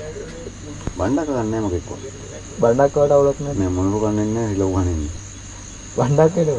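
A man's voice in four long, wavering, drawn-out phrases, sung or chanted rather than spoken, over a steady high chirring of crickets.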